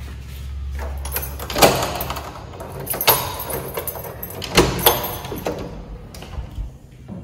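A bunch of keys jangling and a key working in an interior door's lock, with several sharp metallic clicks. The lever handle's latch clicks as the door is opened.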